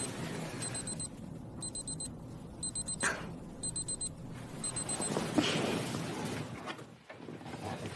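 Digital alarm clock beeping: clusters of quick, high beeps about once a second, stopping about five seconds in. A soft rustle follows near the end.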